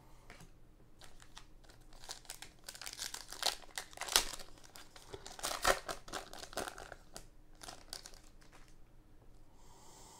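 Wrapper of a football trading-card pack crinkling and tearing as it is torn open by hand, in dense crackles that are loudest a few seconds in. A short hiss near the end as the cards are slid out of the wrapper.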